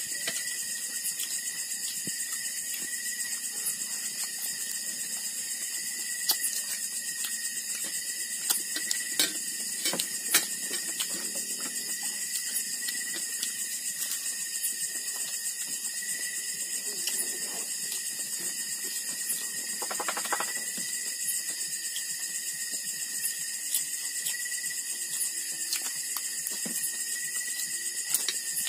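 A steady night chorus of trilling insects (kuliglig): a continuous high-pitched trill with a constant tone running through it. A few light clicks and knocks of plates and utensils come through it, more of them in the first third and again about two-thirds of the way in.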